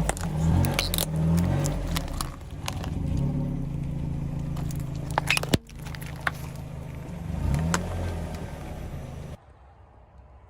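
A car engine running at low speed, its pitch rising and falling, with sharp clicks and crackles over it. The sound cuts off abruptly about nine seconds in.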